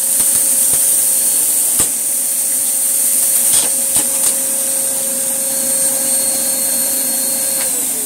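Hoover Blaze canister vacuum running with its pet head, sucking up dry debris, with a few sharp clicks and rattles as bits are drawn in. Near the end the motor note drops in pitch, which the owner hears as the head jamming up.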